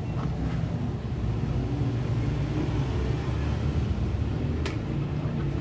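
A steady low rumble, with a single short sharp click about three-quarters of the way through.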